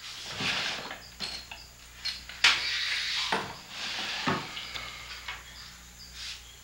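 Rustling, scraping and short knocks of things being handled at a wooden dresser, with a sharp knock about two and a half seconds in, the loudest moment. Faint insect chirps carry on behind.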